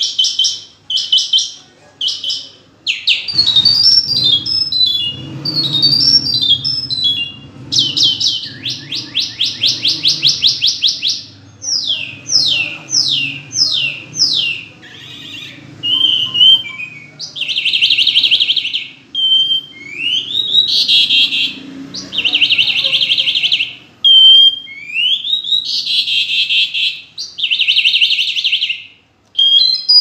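A caged songbird singing a long, varied song in quick phrases with short pauses: fast trills, runs of rapidly repeated notes, rising whistled slides and buzzy rattling passages.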